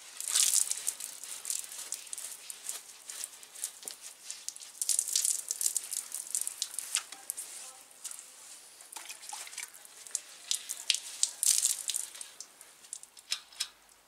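A wet sponge scrubbing a Pinarello road bike's wheel and frame: bursts of hissy rubbing, about three main bouts, with many small clicks in between.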